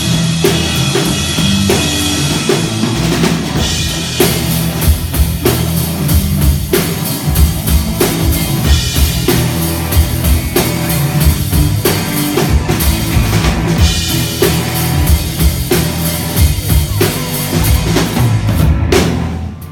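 A live rock band plays loudly, led by a full drum kit with kick drum and snare over steady bass notes. The music cuts off just before the end.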